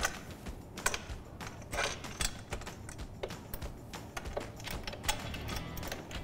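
Small irregular metallic clicks and taps of a bolt, washer and bushing being handled and threaded by hand into a steel motorcycle pannier rack's mounting point.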